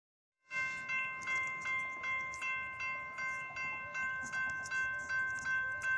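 Railroad grade-crossing warning bell ringing in steady, evenly spaced strokes, about three a second, starting about half a second in. With the gates down it is warning of an approaching train.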